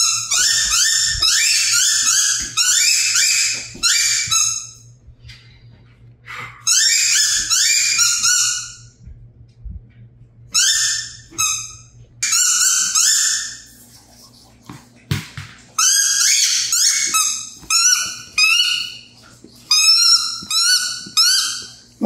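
Rubber squeaky ball toy being chewed by a golden retriever puppy: runs of quick, high-pitched squeaks, a few a second, broken by short pauses.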